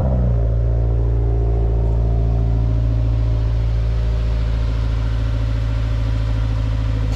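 Subaru WRX's FA20 turbocharged flat-four engine running at low revs as the car rolls slowly into place and settles to an idle.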